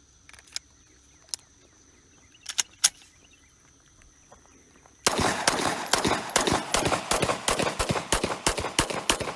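Rapid semi-automatic gunfire, about four to five shots a second, starting suddenly about five seconds in. Before it, a steady high insect drone with a few sharp clicks.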